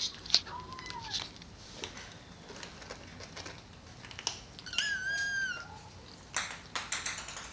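Maine Coon kittens mewing: a short faint mew about half a second in and a longer mew about five seconds in, among light scattered clicks.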